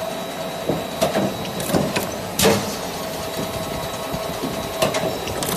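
Steady hum of a running punch press at a hinge-part stamping die, with a string of irregularly spaced sharp metallic clicks and knocks; the loudest knock comes a little under halfway through.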